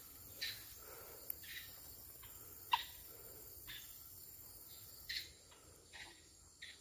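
Footsteps and rustling through grass and leafy plants: short, irregular swishes every half second or so, the sharpest a little under halfway through, over a faint steady high hiss.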